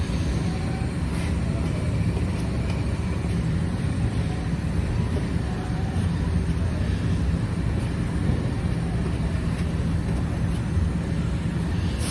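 A steady low rumble with no clear breaks or strikes.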